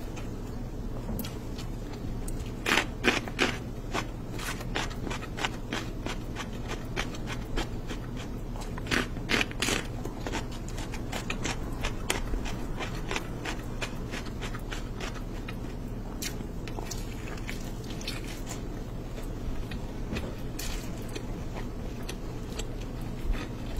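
Fingers mixing rice with mutton curry on a plate, close up: wet squishing, with clicks and scrapes on the plate. The loudest clusters come about three seconds in and again around ten seconds. A steady low hum lies underneath.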